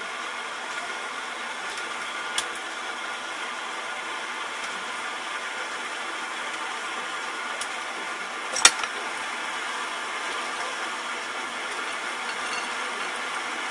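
Steady background hum and hiss with a few kitchenware clicks: a light click a couple of seconds in and a sharper knock about two-thirds through, as metal utensils and a metal bowl handle the plated noodles.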